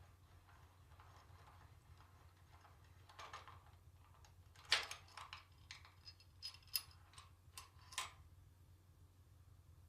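Hand tools and loose bolts clicking and clinking against metal transmission parts: a run of sharp knocks and taps about three seconds in, the loudest one near halfway, dying away after about eight seconds. A low steady hum sits underneath.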